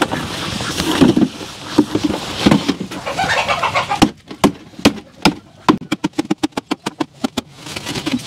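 Wooden beehive frames and box knocking and cracking as propolis-glued Hoffmann frames are pried and the box is lifted. About halfway there is a quick run of sharp clicks, roughly four or five a second, for a few seconds.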